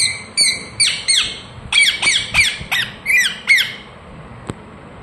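Indian ringneck parrot giving a quick run of about ten short, sharp calls, each dropping in pitch, which stop about three and a half seconds in.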